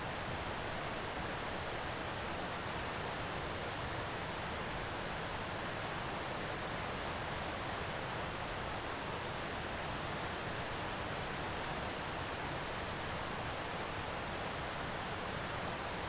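Steady, even rushing background noise with no distinct events and no bird calls.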